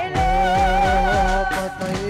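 Live Gujarati devotional music: a long, wavering melody note held over a steady lower tone and regular deep drum beats.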